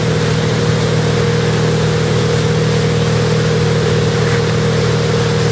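Tow boat's engine running steadily at speed, an unchanging drone with the rush of water and wake beneath it.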